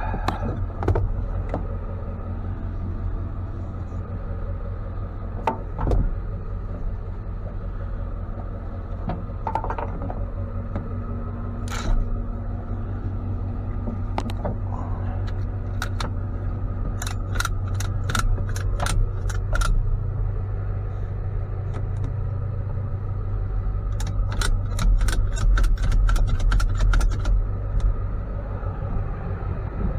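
Motor vehicle running, a steady low engine and road rumble that grows somewhat louder in the later part, with two runs of rapid rattling clicks, one about halfway through and one near the end.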